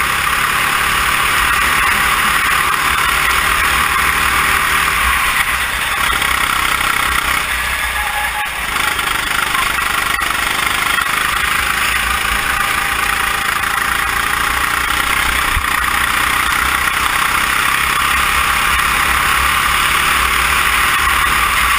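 Kart engine running at speed, heard close up from onboard, under a steady rushing noise. It eases off briefly about 8 seconds in, then pulls again.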